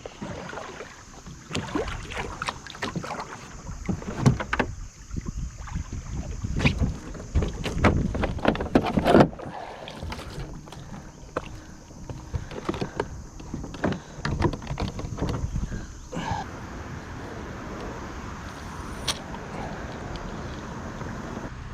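Kayak being boarded and launched: irregular knocks, clunks and scrapes against the hull for most of the time, settling about sixteen seconds in into a steadier, even noise as the boat gets under way.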